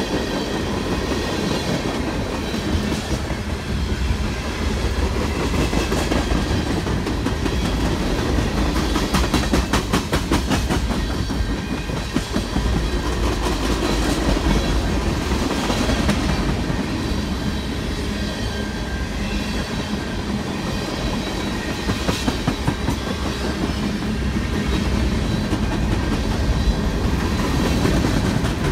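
Freight train passing: steady rolling noise of the cars, with wheels clicking over rail joints, including a fast run of clicks about nine to eleven seconds in.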